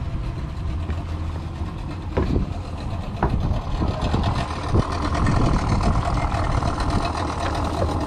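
Boat engine idling with a steady low hum, with a few sharp knocks about two, three and five seconds in.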